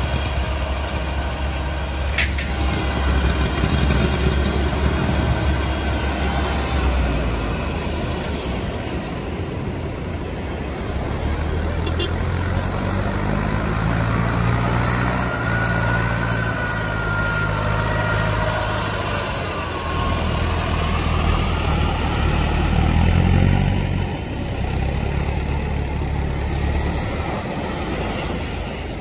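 Tractor and outboard engines running over breaking surf during a beach boat launch. Around the middle, an engine note rises and falls as it revs.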